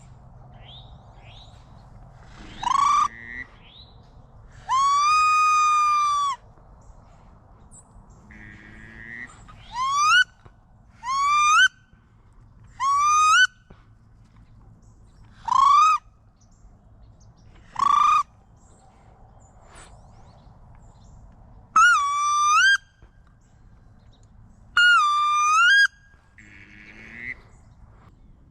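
A series of about nine loud, whistled squeals of the wood duck kind, a few seconds apart. Some are short and rise sharply at the end; others are drawn out and level.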